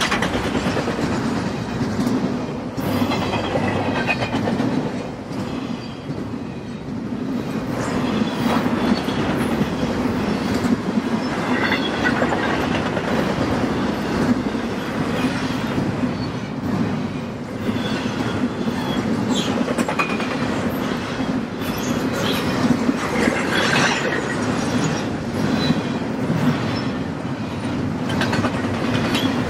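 Double-stack intermodal freight train cars rolling past steadily, with wheels clicking over the rail joints and a brief high wheel squeal now and then.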